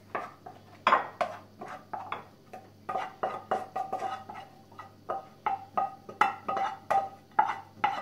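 Wooden spatula knocking and scraping cooked oatmeal out of a nonstick frying pan into a ceramic bowl: irregular sharp knocks, about three a second, each ringing briefly.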